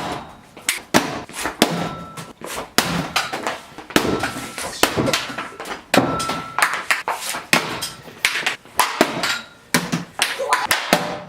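Hockey pucks striking a laptop again and again: hard, irregular knocks and whacks, about two or three a second.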